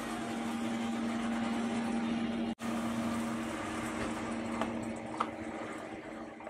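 A steady electric machine hum over a broad hiss, briefly cutting out about two and a half seconds in, with a couple of faint clicks near the end.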